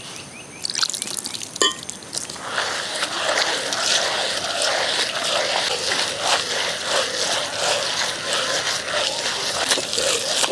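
Soaked rice and grated coconut being ground by hand in a traditional stone grinder: the heavy round stone turning in its stone basin, crunching and scraping the wet grains with a dense gritty rattle that starts about two and a half seconds in.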